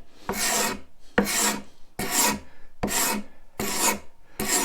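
Hand scraper drawn across a tough, figured wooden board in repeated strokes, about six in under five seconds, working diagonally to the grain.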